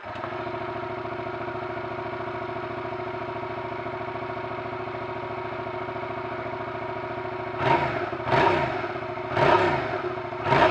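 Yamaha MT-07's 689 cc parallel-twin engine idling steadily through its stock muffler, freshly started. Near the end come four quick throttle blips, each revving up and dropping straight back to idle.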